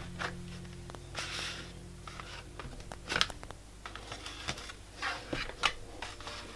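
Hands rustling and rubbing across a paper scrapbook page, with short scraping sounds and a few sharp taps.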